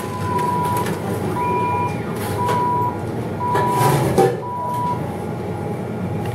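Belarusbank ATM beeping, one short mid-pitched beep about once a second, five times, stopping about five seconds in, over a low steady hum. A few clicks come near four seconds in, as its side buttons are pressed.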